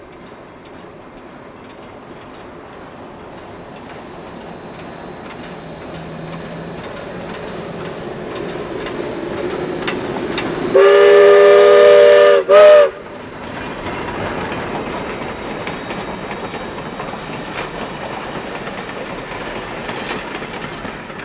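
Steam locomotive approaching and passing, its running noise growing steadily louder. About eleven seconds in its steam whistle sounds one long blast, then a short one right after. The rolling clatter of the train carries on as the cars go by.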